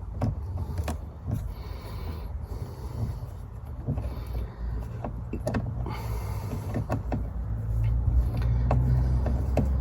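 Scattered light clicks and knocks of a screwdriver and hands working at a car door trim panel, over a steady low rumble that grows louder near the end.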